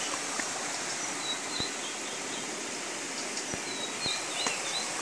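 Outdoor ambience: a steady hiss with faint, short bird chirps now and then.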